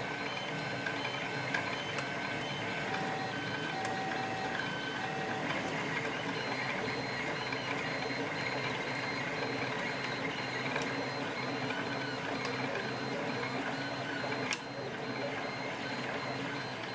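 Printers running with a steady mechanical hum and short motor whines that change pitch every second or so, plus a few sharp clicks, the loudest about fourteen and a half seconds in.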